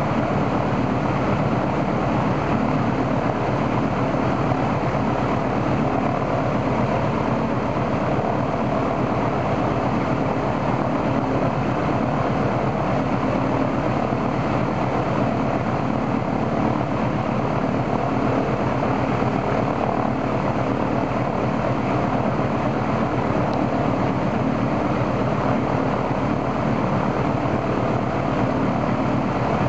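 Ilyushin Il-14's Shvetsov ASh-82T fourteen-cylinder radial engine running at a steady speed with its propeller turning, in a ground test run after its oil cooler was replaced.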